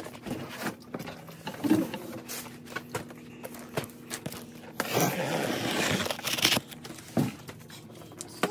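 Cardboard shipping boxes being handled and unpacked: irregular knocks and scrapes of cardboard, with a stretch of loud cardboard and paper rustling about five seconds in. A faint steady hum sits underneath.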